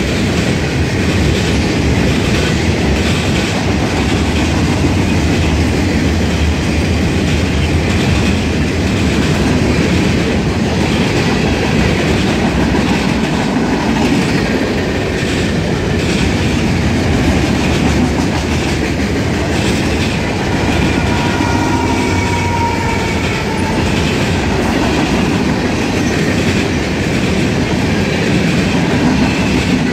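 Freight cars of a long mixed freight train rolling steadily past: a continuous rumble of steel wheels on rail with irregular clickety-clack over the rail joints. A short thin squeal of wheels comes about two-thirds of the way through.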